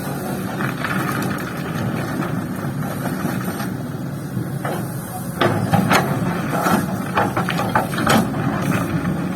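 Kobelco hydraulic excavator's diesel engine running steadily, with a run of clanks and knocks starting about five and a half seconds in as material is loaded into a dump truck.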